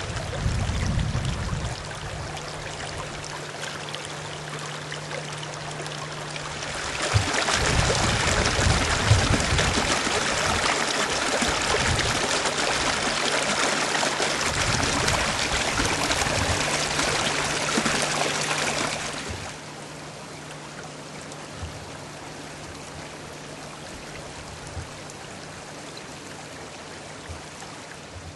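Shallow stream running over stones, a steady rushing and splashing of water. It grows louder about 7 s in, where the water tumbles white over the rocks, and drops back fainter near 19 s. A faint steady low hum sits under it.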